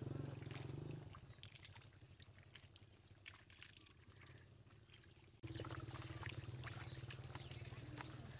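Hands splashing and squelching through shallow muddy water, with many short wet splashes and trickles. Under them runs a low steady hum, which fades after about a second and comes back suddenly past the middle.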